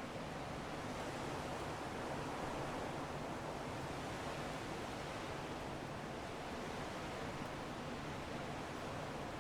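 Strong wind blowing as a steady, even rushing noise.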